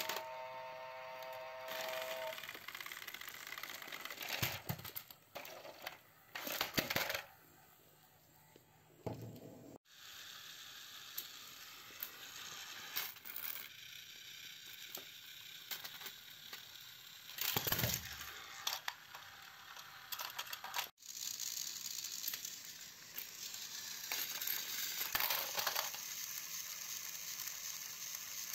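Battery-powered toy train motors and gearboxes whirring and rattling as the locomotives shove each other along plastic track, with sharp plastic clatters as trains bump and fall. A short pitched tone sounds at the start.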